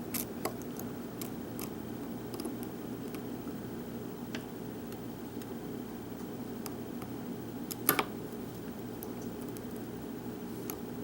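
Small, scattered clicks and ticks of a hook pick working the pins of a Yale pin-tumbler lock under tension, probing to find the pin holes past the warding. A louder double click comes about eight seconds in, over a steady background hum.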